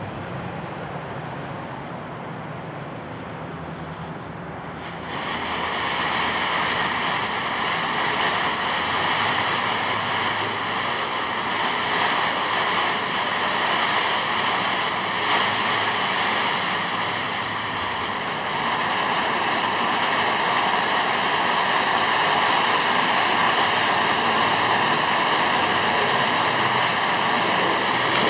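Phantom Fireworks 'New York Harbor' consumer fountain firework spraying sparks with a steady hiss. The hiss starts about five seconds in, over quieter background noise, and keeps going without a break.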